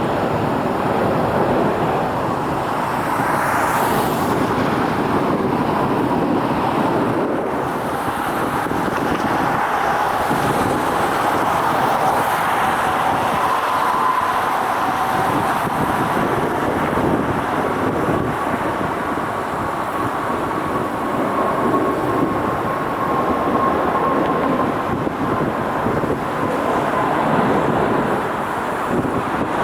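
Jet airliner engines running as a steady roar, with a faint whine through the middle that drifts slightly in pitch, and wind on the microphone.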